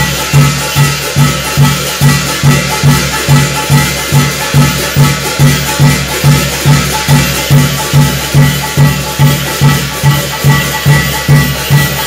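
Live Korean shamanic gut ritual music: a drum beating steadily about two and a half times a second, with brass hand cymbals clashing and ringing over it.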